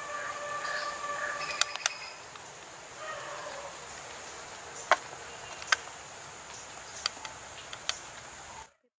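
Sharp light clicks, about six scattered through, of a spoon tapping against small spice cups and the clay pot while powders are added, over a steady outdoor hiss. An animal call, held for about a second and a half at the start and briefly again after three seconds, sounds in the background; the sound cuts off suddenly near the end.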